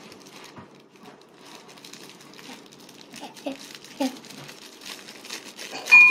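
Crinkling plastic of a nori packet being handled and torn open at its notch. A sharp clink comes near the end.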